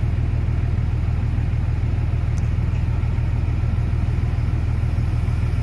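Caterpillar 3116 six-cylinder diesel of an M1078 LMTV military truck running steadily as the truck drives slowly over rough ground; a low, even engine sound.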